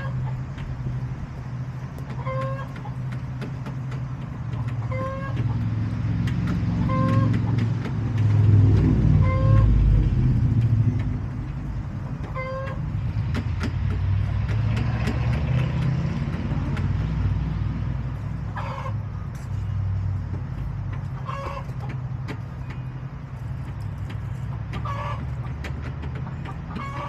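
Backyard hens clucking, with short calls repeating every two to three seconds, over a steady low rumble of road traffic that swells loudest as a vehicle passes about eight to eleven seconds in.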